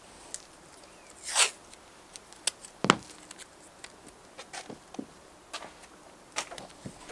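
Scattered sharp clicks and taps with a brief swish about a second and a half in and a loud knock about three seconds in.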